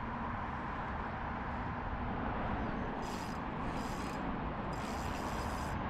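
Steady low rushing noise, with several short high whirring bursts from about halfway in, typical of a spinning reel being wound in while a fish is played.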